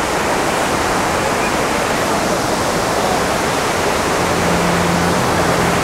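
The Rhine Falls close at hand: a steady, loud rush of a large volume of falling water.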